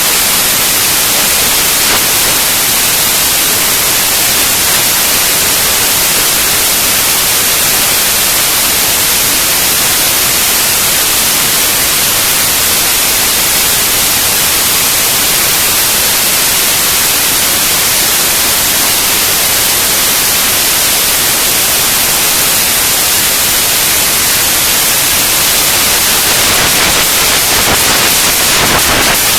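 Loud, steady hiss, strongest in the upper range, with a few faint crackles near the end.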